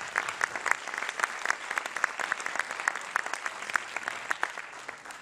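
Audience applauding: a dense patter of handclaps that thins out and fades near the end.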